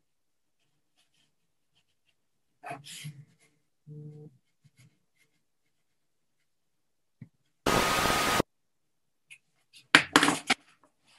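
A sudden burst of loud hissing noise with a steady high tone through it, lasting under a second, about two-thirds of the way in. A little later come several sharp knocks and rustles of someone moving.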